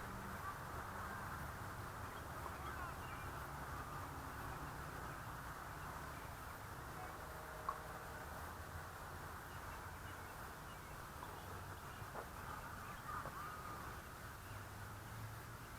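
Faint outdoor ambience: low wind rumble on the microphone with birds calling now and then, and a single sharp tick about halfway through.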